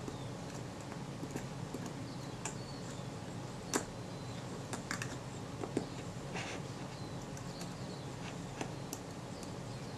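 Small metallic clicks and taps of steel tweezers on the parts of a lens focusing mount as a tight-fitting piece is worked into place: a few scattered ticks, the loudest about four seconds in, over a steady low background hum.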